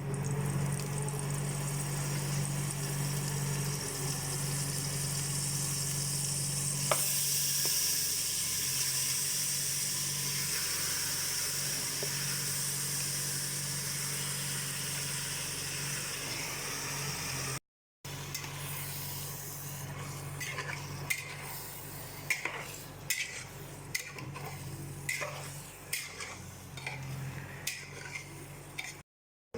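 Food sizzling in hot oil in a pan, the sizzle growing louder about a quarter of the way in. After a short break, a spoon stirs and scrapes against the pan in a string of clicks over a quieter sizzle.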